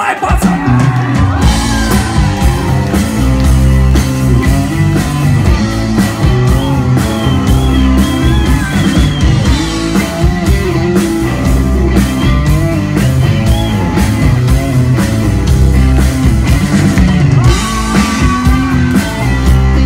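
Rock music with no singing: a band playing electric guitar over bass and a drum kit, with a wavering lead guitar line partway through.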